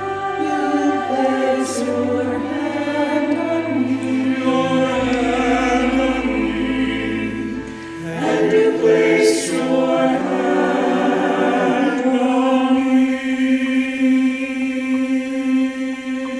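Music with sustained voices singing, a choir-like sound over changing bass notes, settling into a held chord in the second half.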